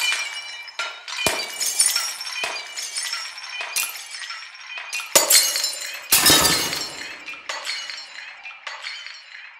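A string of about ten sharp crashes and clinks with a glass-breaking character, each leaving ringing tones, in an experimental noise composition. The heaviest crash, with a low rumble, comes about six seconds in.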